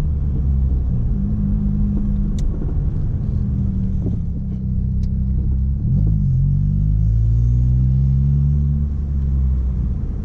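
Chevrolet Corsa 1.4 four-cylinder engine running through a sport exhaust with Luzian intermediate and final mufflers, a deep drone heard inside the cabin. The engine note dips about six seconds in, then climbs steadily as it revs up. A few faint clicks are heard along the way.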